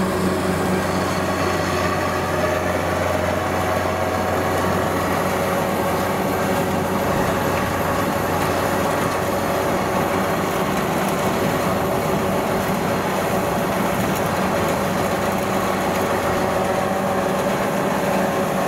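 Kubota rice combine harvester running steadily while harvesting, its diesel engine and threshing machinery a constant drone.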